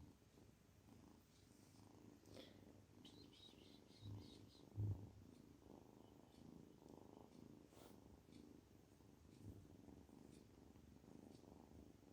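Kitten purring: a quiet, steady rumble. Two soft low thumps come about four and five seconds in.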